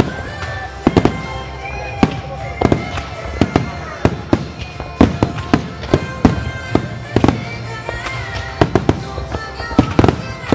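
Starmine fireworks: aerial shells bursting in quick, irregular succession, loud sharp booms often several a second, over music playing from loudspeakers.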